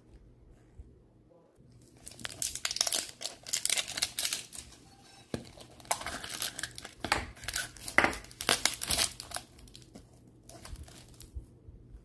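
Plastic shrink wrap crinkling and tearing as it is peeled off a plastic surprise capsule, in dense crackling bursts starting about two seconds in and easing off near the end.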